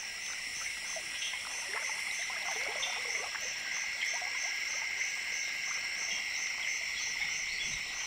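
Wetland chorus of frogs and insects: a steady high buzzing drone with an even pulsing at the top, and scattered short croaking calls in the first few seconds.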